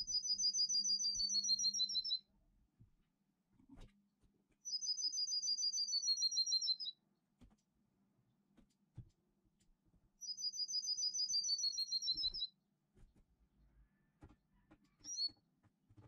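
Songbird 'canto metálico' song played in the background as a teaching song: three near-identical phrases, each a fast, high trill of doubled notes that slides slightly downward for about two seconds, a few seconds apart. A short chirp comes near the end.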